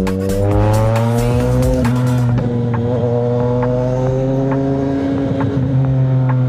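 CFMoto 675NK's inline-three engine pulling under acceleration, its pitch rising over the first two seconds, then climbing more gently and holding steady. Music plays underneath.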